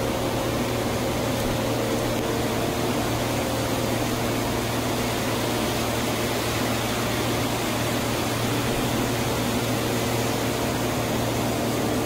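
Steady rushing noise of gas burners and a hand torch in a glassblowing studio, with a low hum underneath; it holds even throughout, with no knocks or clinks.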